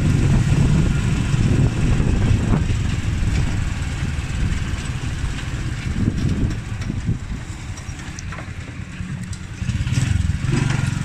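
A small vehicle's engine running while riding along a road, heavy with low rumble from wind and the road; it eases off in the middle and picks up again near the end.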